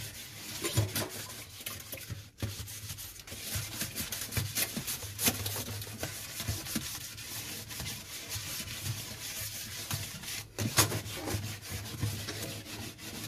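A dampened ball of crumpled aluminium foil is scrubbed back and forth against a stainless steel sink, making a continuous scratchy rubbing. It breaks off briefly about two seconds in and again near ten seconds.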